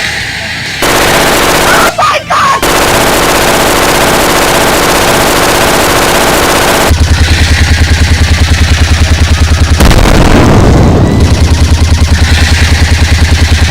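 Movie-style machine-gun fire sound effects: a dense, continuous volley of shots, then rapid evenly spaced automatic fire from about seven seconds in, with a short break near ten seconds.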